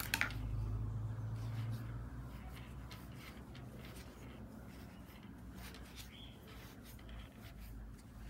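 Soft rubbing and scratching of white fluffy stuffing being pushed by hand and with wooden chopsticks into a crocheted yarn piece, with a low hum during the first two seconds.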